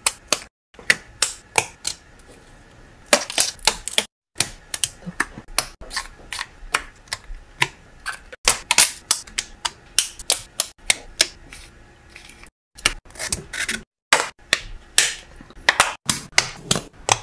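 Sharp wooden clicks and snaps from thin laser-cut plywood pieces of a ROKR LK502 mechanical puzzle box being handled and pressed together. They come in quick, irregular runs, broken by a few short silences.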